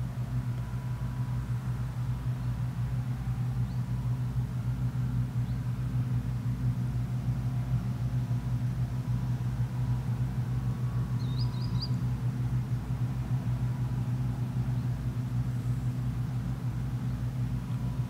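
John Deere 1188 combine harvester running while cutting wheat: a steady low engine drone with a fast low pulse beneath it, holding even throughout.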